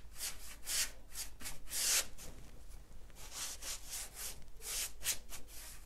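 Bristles of a wax brush scrubbing dark furniture wax into a bare pine tabletop: repeated brisk strokes, about two a second, as the first coat is worked in and feathered.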